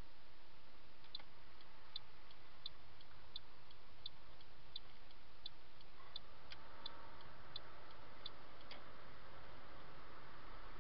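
Car's turn-signal indicator clicking in an even tick-tock, a louder and a fainter click about every 0.7 s, starting about a second in and stopping near the end, over a steady hiss of road and cabin noise.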